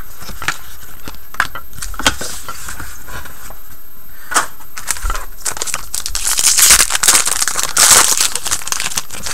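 Trading-card pack wrapper crinkling and being torn open, among clicks and taps of cards and packs being handled on a table. The crinkling is loudest about six to eight seconds in.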